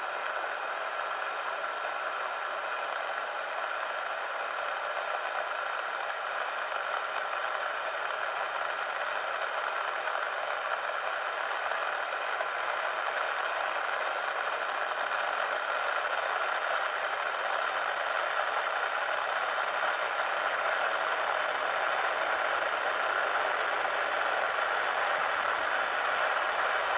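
Boeing 747-400's four jet engines on final approach, a steady whine and rush that grows slowly louder as the jet nears.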